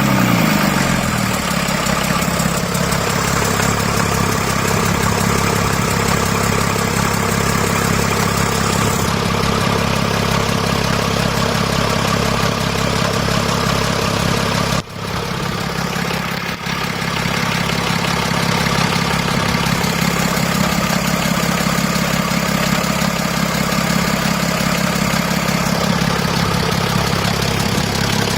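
BMW X6 engine idling steadily just after start-up, its revs dropping and settling in the first second. The rattle it had is now barely heard; the mechanic puts the rattle down to heavily carboned pistons and valves, which he is partway through cleaning.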